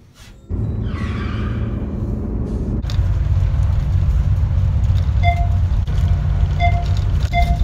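School bus engine and road noise heard from inside the cabin: a loud, steady low rumble that starts about half a second in. In the second half a short beep repeats about every second and a half.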